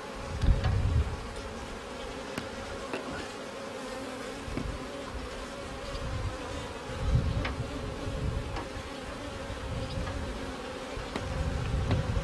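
Honeybees buzzing steadily around an open queen-rearing starter colony, with a few faint clicks from handling the cell bar and low rumbles about half a second in, around seven seconds in and near the end.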